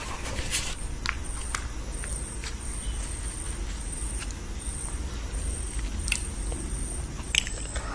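Eating-show handling sounds: a few short, soft clicks and smacks as flatbread is torn by hand and dipped in curry, over a steady low hum.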